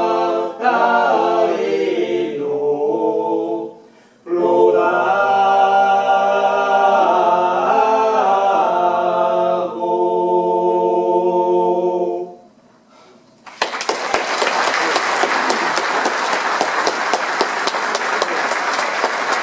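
A small mixed group of four voices, three men and a woman, singing a cappella in close harmony on long held chords, with a short breath break about four seconds in and a final chord ending about twelve seconds in. After a second of quiet, the audience applauds.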